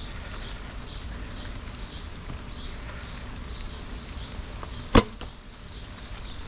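Oneida Phoenix bow shot once about five seconds in: a single sharp snap as the string releases the arrow. Faint high bird chirps repeat throughout.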